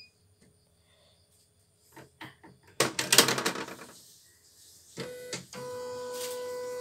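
CNY home embroidery machine starting its stitching run: a few clicks and a short loud clatter about three seconds in, then from about five seconds a steady mechanical running hum.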